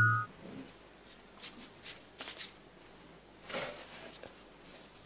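Faint rustling of paper sheets being handled and passed from hand to hand, a few short crinkles at a time, after a held electronic tone stops just after the start.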